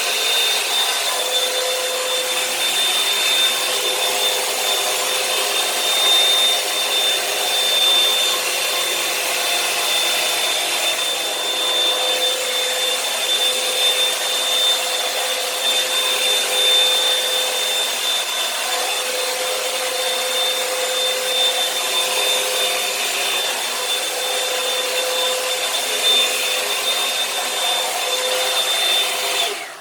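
Revlon One-Step hot-air brush dryer running steadily, a fan rush with a high steady whine, switched off suddenly near the end.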